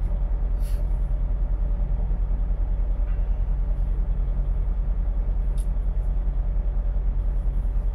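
Volvo semi-truck's diesel engine idling steadily with a low, even pulsing rumble, heard from inside the cab. A short rustle of a wet wipe comes about a second in, and a light click comes past the middle.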